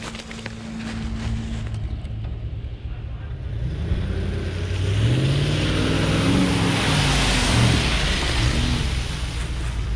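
Full-size SUV powering through a deep mud hole, its engine revving up and down over the slosh and spray of mud and water. It gets louder from about halfway through as it comes close and passes.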